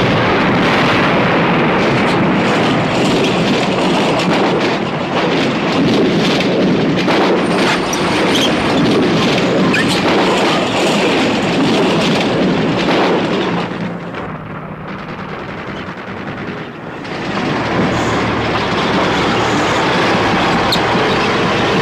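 Dense film battle noise: tanks running with their tracks clattering, mixed with gunfire and explosions. It eases off briefly about two-thirds of the way through, then builds up again.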